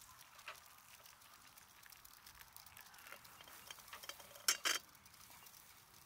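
Hot water poured into a metal Sierra cup over miso paste and chopped greens for instant miso soup, heard as a faint steady pour. About four and a half seconds in come two sharp metallic clinks in quick succession.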